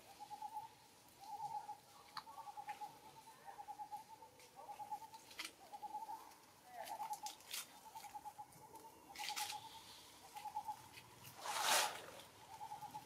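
Forest ambience: a short pulsed trilling call repeats about once a second, with scattered clicks and rustles of dry leaves. Near the end comes one louder crunching rustle of dry leaf litter, lasting about half a second.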